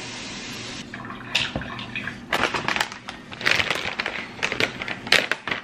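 Water running steadily from a kitchen tap for about the first two seconds, then fading out. After that comes irregular crinkling of a plastic drink-mix pouch being handled.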